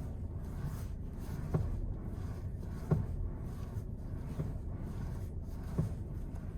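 Power steering of a 2020 VW Tiguan Mk2 giving dull pops, three in all with the loudest near the middle, over a steady low hum. The popping is the sign of a faulty power steering unit.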